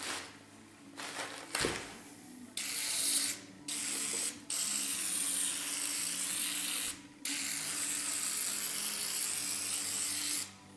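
Aerosol can of penetrating oil hissing through its straw in four sprays, two short then two long ones of a few seconds each. The oil is being worked in around the hub of a rust-seized brake rotor.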